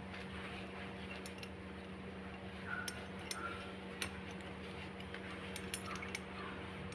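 Metal buckles of a safety harness clicking and clinking as its waist and leg straps are fastened and tightened, with a few sharp clicks spread irregularly through, over a steady low hum.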